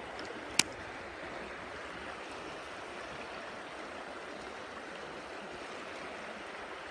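Creek water running steadily over rocks, with one sharp click about half a second in.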